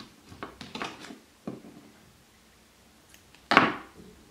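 Soft handling sounds of a crochet hook working cotton thread, with one sudden, louder short noise about three and a half seconds in.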